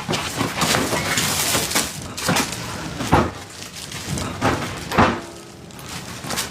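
Irregular knocks, thumps and rustling from someone hurriedly scrambling to hide under a bed, with a patch of rustling about a second in.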